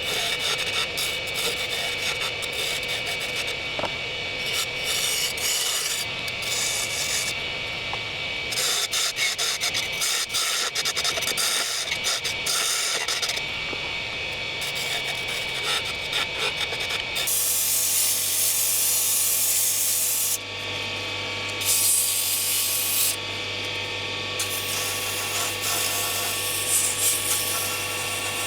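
Wood lathe turning a broom-handle blank into a tool handle, with a tool scraping against the spinning wood in a rough, rapidly chattering rasp. About two-thirds of the way through the sound changes to a smoother hiss over the lathe's steady low hum, as the turned handle is sanded.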